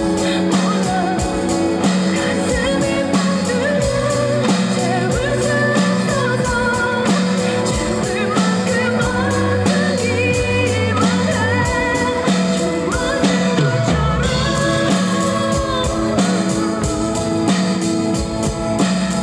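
Drum kit played live along with a pop ballad backing track: a steady beat of drums and cymbals under a sung vocal melody.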